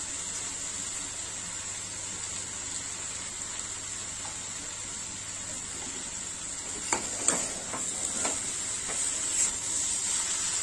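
Cabbage, potato and papaya sizzling steadily in a metal kadai. From about seven seconds in, a metal spatula stirs the vegetables, with several sharp clicks and scrapes against the pan.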